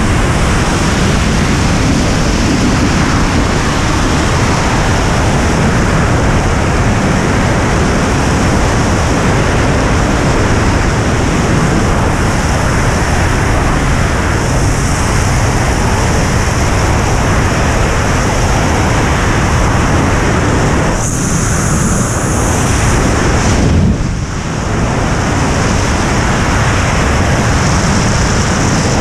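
Loud, steady rush of air over the jumper's camera microphone in fast flight during a BASE jump. The hiss changes character for a few seconds around two-thirds of the way through, with a short dip in level.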